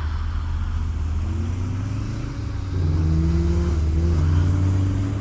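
A motor vehicle engine running with a strong low drone. About halfway through it grows louder and its pitch climbs as the revs rise, stepping slightly up and down.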